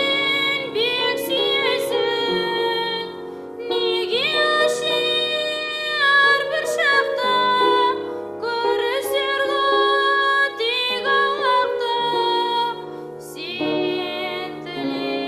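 Music: a slow melody in long held notes, phrases of a few seconds each with short gliding rises into the notes.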